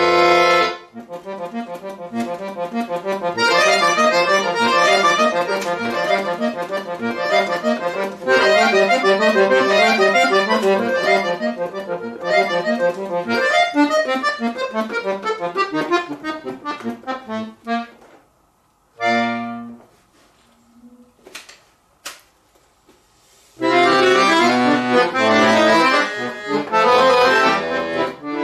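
Chromatic button accordion played solo: a loud held chord breaks off into fast runs of notes, which die away about two-thirds of the way through into a pause of several seconds, broken only by one short soft chord and a couple of faint clicks. Loud playing then resumes.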